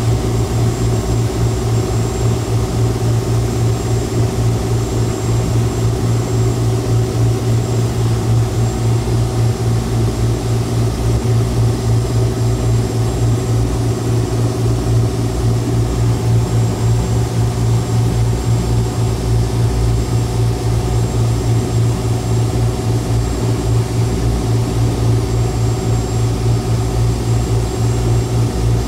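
Speed boat's engines running steadily at speed, a loud, unchanging drone with a strong low hum.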